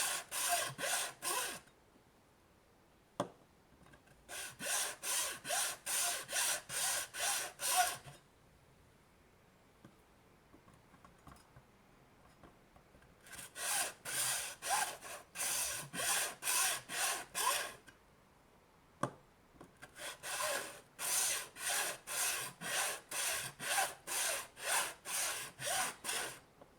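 Saw cutting through the hard plastic case of a Nintendo Switch AC adapter, in quick back-and-forth rasping strokes, about two to three a second. Four runs of strokes, with short pauses between them.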